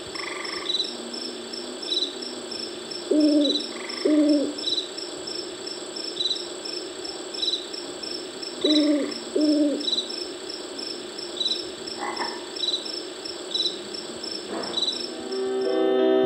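Fisher-Price Sweet Little Lamb Cradle 'n Swing's built-in nature-sounds track playing through its speaker: frog croaks, two pairs of them, over short high chirps that repeat every half second to a second.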